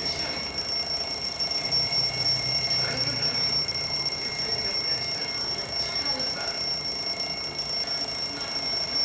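Alarm clock ringing, a steady high-pitched ring that does not let up.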